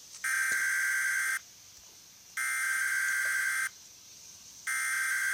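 Emergency Alert System SAME header: three digital data bursts, each a little over a second long, about a second apart. It is the coded header that opens an emergency alert broadcast.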